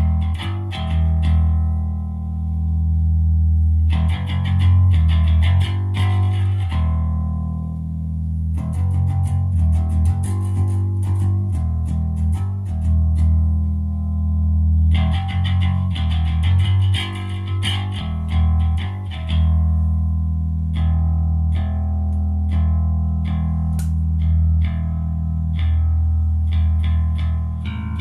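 Electric bass guitar played through an Ampeg SVT-style clone bass amplifier on test: a run of plucked notes with a heavy, sustained low end.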